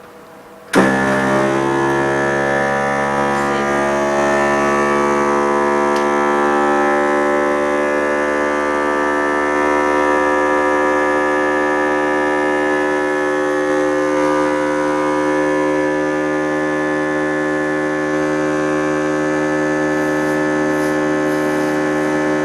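Vacuum pump of an OCA laminating machine switching on abruptly just under a second in, then running with a steady, even hum, drawing the vacuum that laminates the OCA film onto the LCD.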